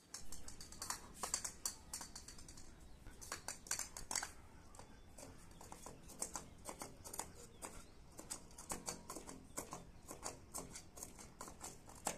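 A German Shepherd working at a floor drain grate with its paws and muzzle, trying to get a ball out: irregular runs of clicks and scrapes on the metal grate and concrete.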